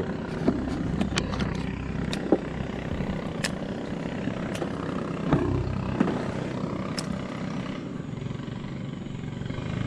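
A small boat's motor running steadily, with a few sharp clicks and knocks over it.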